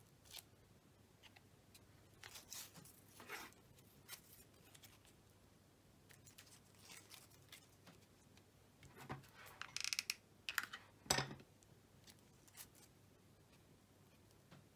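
Hands working floral tape around wired craft stems: scattered short rustles, snips and small clicks, busiest about ten to eleven seconds in.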